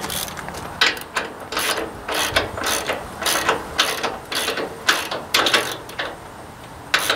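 Hand ratchet wrench worked back and forth to tighten a bolt, a short burst of clicks with each stroke, about two strokes a second.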